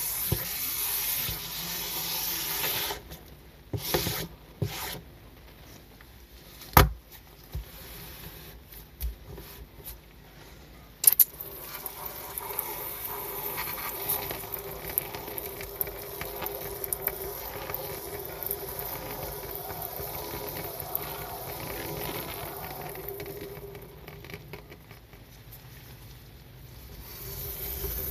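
Miniature squeegee scraping foamy wash water across a plastic tray, a steady scrape for about three seconds, followed by a few sharp clicks and knocks of the small tools. Then a steady rubbing, and near the end the squeegee drags water across the wet miniature carpet.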